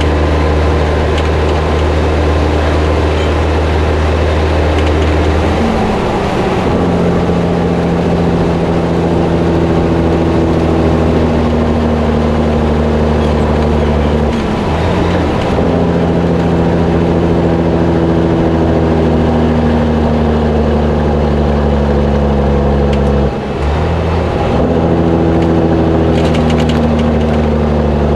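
Diesel engine of a 1984 Peterbilt cabover semi tractor running steadily as it pulls an empty flatbed trailer on the road. The engine note breaks briefly about 15 and 23 seconds in, where gears are changed, then picks up again at a new pitch.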